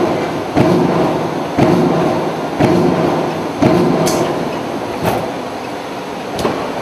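Perforating press of a ceiling-tile perforation line punching metal sheet: a heavy stroke about once a second over a steady machine hum, the strokes thinning out for the last couple of seconds.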